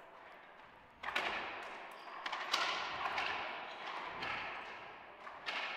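Racquetball rally: the hollow rubber ball cracking off racquets and the court walls, a string of sharp hits about a second apart, each ringing on in the echo of the enclosed court.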